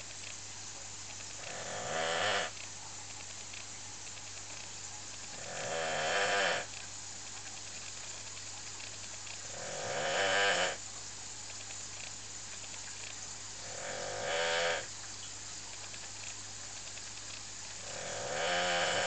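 A dog snoring, about one snore every four seconds, five in all; each snore swells for about a second and then stops abruptly.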